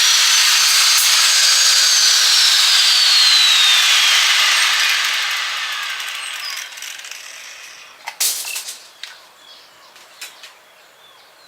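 Angle grinder cutting steel round bar, then switched off about two seconds in; its high whine falls steadily as the disc spins down over several seconds. A sharp clatter about eight seconds in, then a few light knocks.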